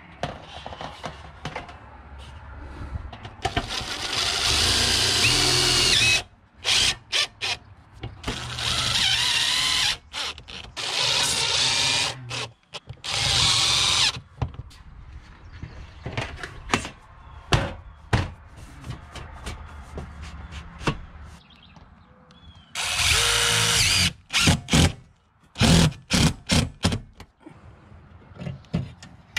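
Cordless brushless drill driving screws to fasten standing seam metal roof panels. It runs in repeated bursts: several last a second or more and many are short stabs, with pauses between them.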